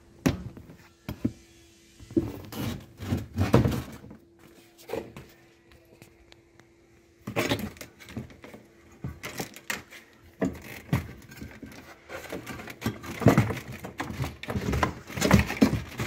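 Handling noise from taking out a washing machine motor: irregular clicks, knocks and clatter of metal and plastic parts as the wiring connector and motor are worked loose, getting busier from about seven seconds in.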